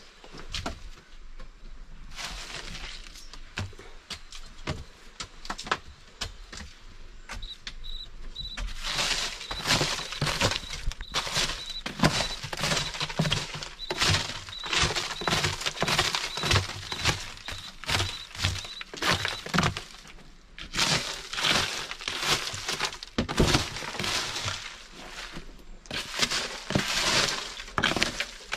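Dry twigs, leaf litter and gravel crunching and snapping in a rapid, irregular series, sparse at first and much busier from about nine seconds in. A faint steady high whine runs through the middle stretch.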